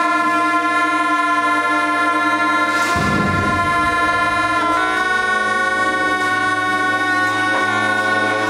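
A pair of gyaling, Tibetan shawms, playing long reedy sustained notes in several overlapping tones, with a step in pitch about five seconds in. A deep, rough low sound joins about three seconds in.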